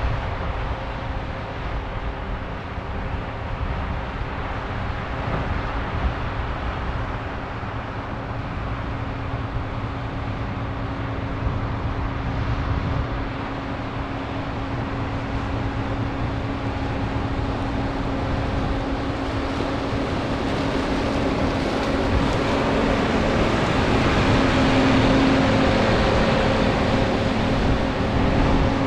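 John Deere 9650 STS combine running, its engine and machinery making a steady drone with a constant hum, growing somewhat louder over the last third.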